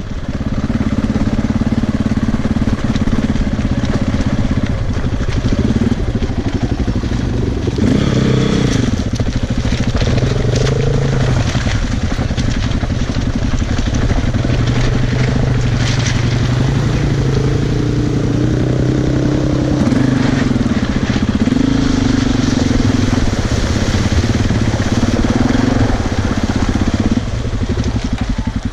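Single-cylinder four-stroke enduro motorcycle engine running under way, its pitch rising and falling several times as the throttle opens and closes, with many small knocks and rattles over the top.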